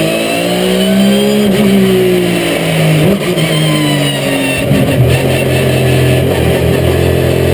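Porsche 997 GT3 RSR's flat-six engine running, heard from inside the cockpit. The revs climb, dip briefly about a second and a half in, and climb again. From about three seconds in they fall away, then hold steady at a lower pitch.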